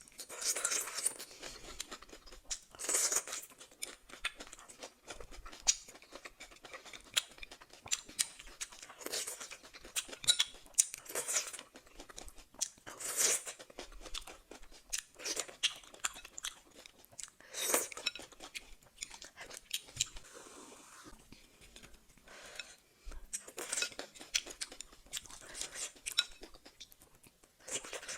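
Close-miked eating: chewing with many small wet clicks and crunches, and about eight louder bursts of noise, each under a second, as a mouthful of ramen with mushrooms and cucumber is eaten.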